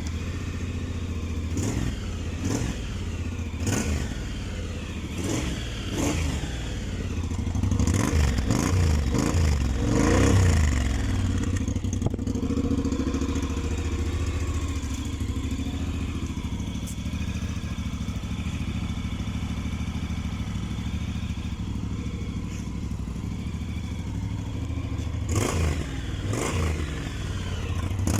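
Honda X-ADV 750's parallel-twin engine running just after starting, with several quick throttle blips in the first ten seconds, a steady idle in the middle, and more blips near the end.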